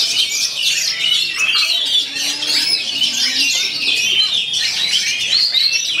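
Oriental magpie-robins (kacer) singing without a break: rapid, varied high whistles and chirps, several birds' phrases overlapping at once.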